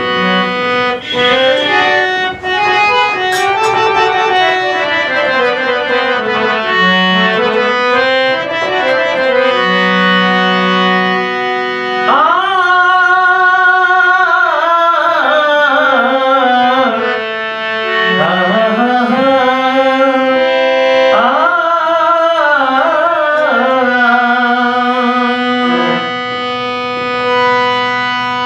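Harmonium and tabla play the opening of a Bhojpuri Holi song in raag Bhairav. From about twelve seconds in, a wordless sung alap glides and wavers over the held harmonium notes.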